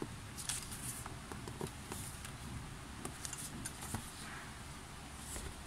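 Light rustles and scattered clicks of a K-pop album and its packaging being handled and unboxed, over a steady low background rumble.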